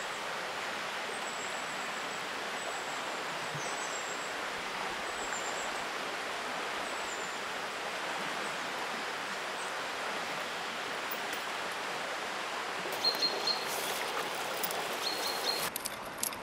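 Stream water rushing steadily, with thin high bird chirps now and then in the first half and a few sharp clicks near the end.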